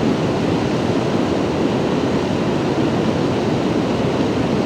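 Steady rush of river current flowing around the wading angler.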